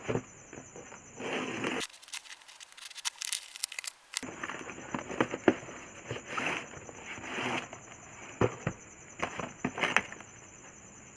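Delivery packaging being torn open and handled, with irregular crinkling, rustling and sharp crackles.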